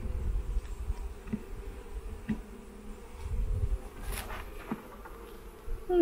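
Honeybees buzzing in a steady hum around an open hive box whose frames are covered with bees. A few light knocks of wooden hive frames being handled come about two seconds in and again near four and a half seconds.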